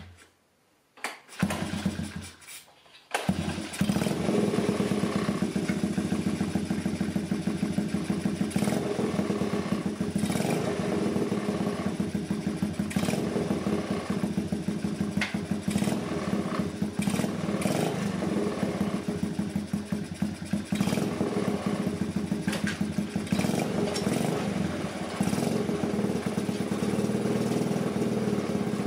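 Honda ATC70 single-cylinder four-stroke engine in a pit bike trike, pull-started for its first run and catching about three seconds in. It then keeps running with a level that rises and dips irregularly, through a fairly muffled exhaust.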